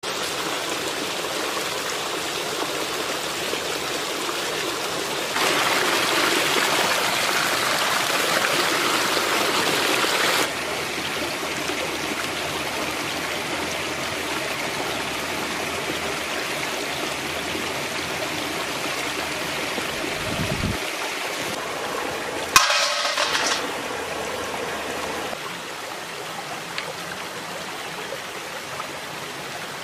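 Flowing river water, a steady rushing that is louder from about five to ten seconds in. A single sharp click comes about two-thirds of the way through.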